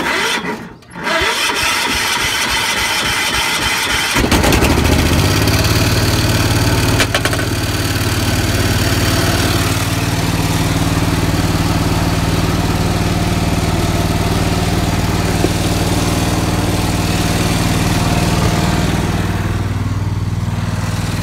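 Cub Cadet 1450 garden tractor's single-cylinder Kohler engine, cold-started after sitting about a month. The starter cranks for about three seconds, then the engine catches about four seconds in and settles into a steady run.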